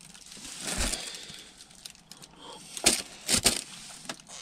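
Faint rustling and handling noise, with a soft low thump about a second in and two sharp clicks about half a second apart around three seconds in.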